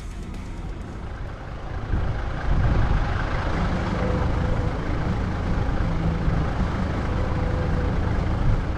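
Toyota LandCruiser Troop Carrier (Troopy) driving, a steady engine and road rumble that gets louder about two seconds in.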